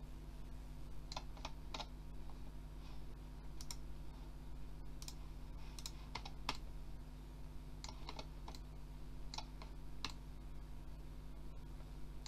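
Irregular, scattered clicks of a computer mouse and keyboard over a steady low hum.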